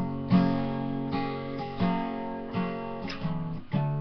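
Acoustic guitar strummed in a slow, steady rhythm, about one strum every three-quarters of a second, each chord ringing on between strokes.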